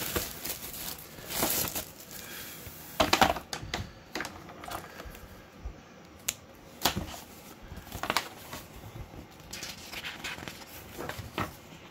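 Plastic wrapping crinkling and tearing in irregular rustles, with sharp clicks, as it is pulled off a book by hand.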